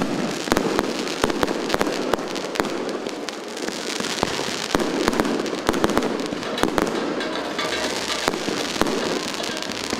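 Fireworks going off: a dense, continuous run of sharp bangs, pops and crackles.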